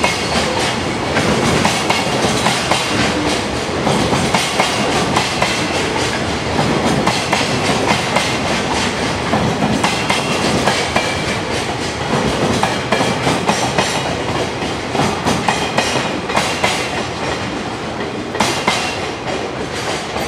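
Koki container flat wagons of a JR Freight train rolling through without stopping: a continuous rumble with a rapid clickety-clack of wheels over rail joints, easing slightly near the end as the last wagons pass.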